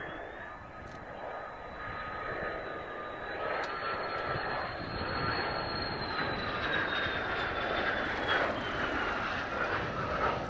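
Mitsubishi F-2 fighter's single General Electric F110 turbofan whining over a jet roar as the aircraft flies low past on a simulated-flameout low approach. The sound grows steadily louder, and near the end the high whine slides down in pitch as the jet goes by.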